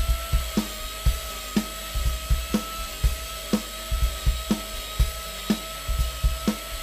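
Arbortech mini grinder with a Mini Turbo carving blade running with a steady, high whine while shaping wood, over background music with an even beat about twice a second.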